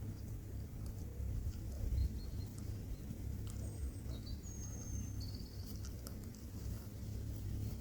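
Rural outdoor ambience: a steady low rumble under faint, high bird chirps, with a thin held whistle about halfway through.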